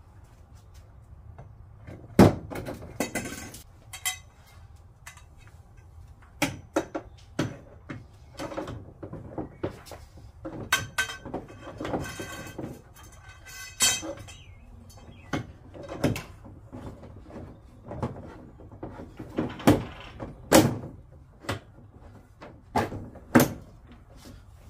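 Assembly tubes being slid into the holes of a plastic play structure's panels: a string of irregular knocks and clunks with scraping between them. The loudest knocks come about two seconds in, near twenty seconds and near twenty-three seconds.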